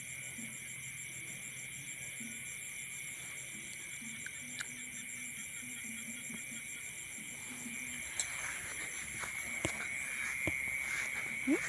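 Evening chorus of insects and frogs: a steady high-pitched trilling with a fast, even pulsing. From about two-thirds of the way through come a few sharp clicks and knocks.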